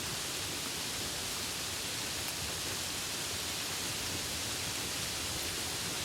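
Steady rain falling, an even hiss with no single drops or knocks standing out.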